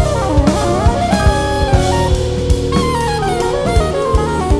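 Instrumental background music: a wavering melody line over a steady drum beat.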